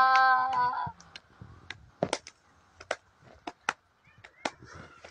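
A singing voice holds the last note of a folk-song line and stops about a second in, followed by a series of sharp, irregular taps or knocks.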